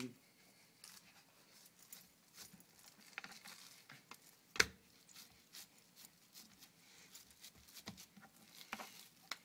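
Hands pressing and patting raw minced beef into a thick patty on a plastic cutting board: faint sticky squishes and pats, with one louder knock about four and a half seconds in.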